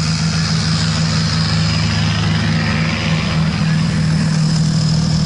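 An engine of the kind used in a miniature railway locomotive running steadily. It gives a loud, even low hum with a faint high whine above it.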